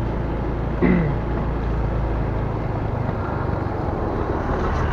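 Motorcycle engine running steadily as it rides along a rough rural road, a continuous low hum with road noise.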